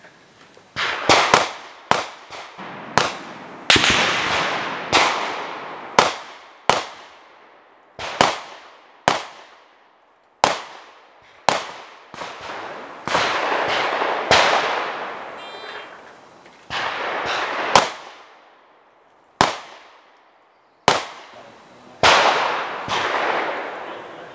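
A long series of about twenty shots from a subcompact CZ 2075 RAMI 9mm pistol, fired at an uneven pace with several quick pairs. Each sharp crack is followed by an echo that dies away over a second or so.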